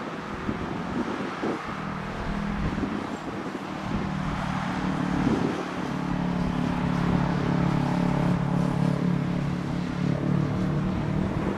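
Jet engines of an arriving Airbus A330-300, a steady hum with low tones that swell over several seconds and grow louder toward the end.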